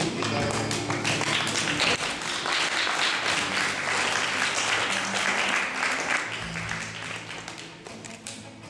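Audience applauding over background music. The clapping swells about half a second in and dies away near the end.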